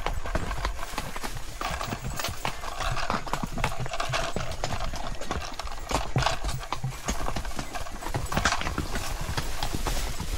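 Horses' hooves clip-clopping on a rocky hill trail as they walk, an irregular run of sharp hoof strikes.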